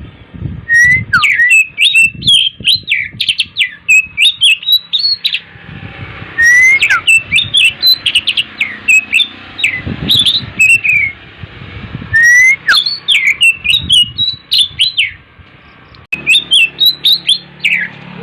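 Oriental magpie-robin (kacer) singing vigorously: four loud phrases of rapid, varied whistles and chirps, each opening with a rising whistle, separated by short pauses.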